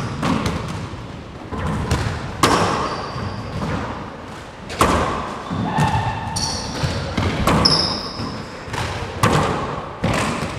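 A handball rally: the rubber ball is struck by gloved hands and smacks off the walls and floor of an enclosed court, giving a series of sharp, echoing smacks at irregular spacing. A few short high squeaks of shoes on the hardwood floor come about two-thirds of the way through.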